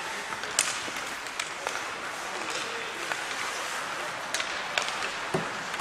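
Ice hockey in play: a steady hiss of skate blades scraping the ice, broken by sharp clicks and knocks of sticks striking the puck and each other.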